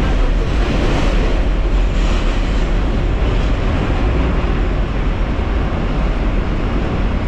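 Steady rumble and rush of a New York City subway car running along the track, heard from inside the car.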